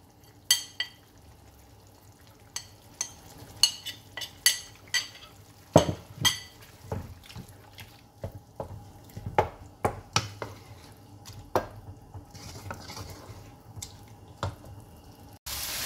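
Short ringing clicks of a spoon tapping spice off a plate, then a wooden spatula stirring beef mince in a metal karahi, knocking and scraping against the pan. Right at the end a loud frying sizzle cuts in suddenly.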